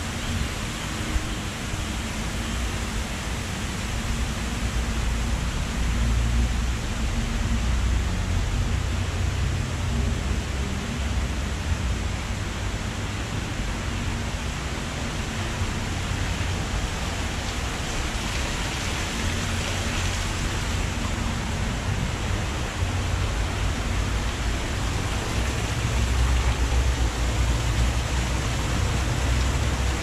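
Steady rushing noise of water running and falling over artificial rocks into a garden pond, with a low, uneven wind rumble on the microphone.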